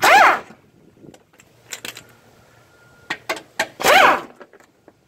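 Cordless power tool whirring in two short runs about four seconds apart, its pitch sweeping as it spins out 10 mm bolts, with small clicks and rattles between the runs.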